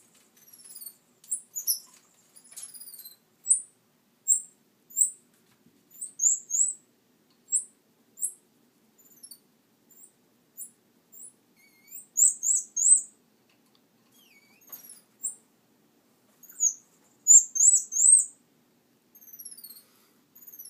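Small bird chirping: short, very high chirps that sweep upward, some single and some in quick runs of three or four.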